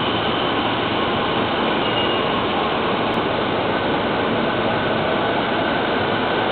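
JR E259-series Narita Express electric train pulling out, its running noise steady and echoing under the station roof, with a faint whine in the second half.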